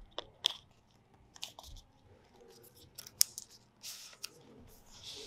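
Cardboard and paper packaging of an Apple Pencil box being handled and opened: scattered sharp clicks and taps, the loudest about three seconds in, and a short rustling scrape about four seconds in.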